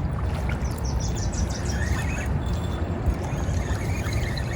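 Wind buffeting the microphone, a steady low rumble, with river water moving underneath.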